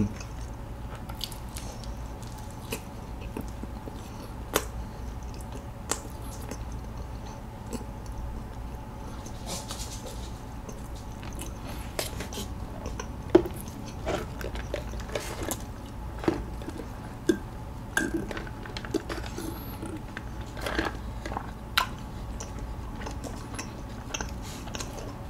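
Quiet close-up eating sounds: chewing a piece of sausage pretzel, then sipping bubble tea through a wide straw, heard as scattered short clicks, smacks and sucks over a low steady hum.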